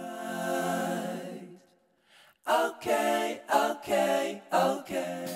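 A singing voice in background music: a long held note fades out about a second and a half in, a short gap, then a run of short sung phrases.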